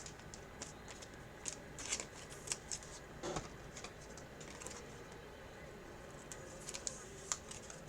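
2023 Panini Mosaic football trading cards being flipped through and handled, with faint scattered flicks and clicks of card on card. The flicks are sparser in the middle.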